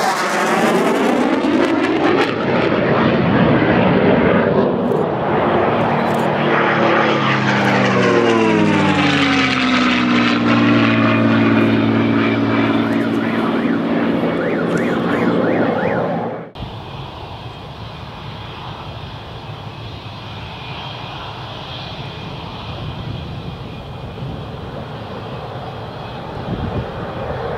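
Twin-engine F/A-18 fighter jet flying past loudly, its engine noise sweeping down in pitch as it goes by. About two-thirds of the way through the sound cuts abruptly to a quieter, steady distant jet rumble.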